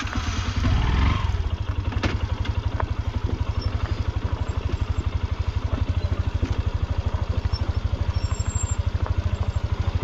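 Motorcycle engine idling with a steady, even pulse, after a brief rise in revs in the first second.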